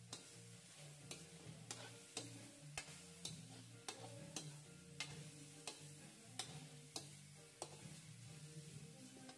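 Metal spatula clinking and scraping against an aluminium wok as cubes of meat are stirred and fried, irregular strikes just under two a second, over soft background music.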